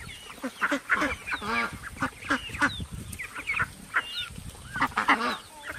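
A flock of white domestic ducks quacking, many short calls in quick, irregular succession and overlapping one another.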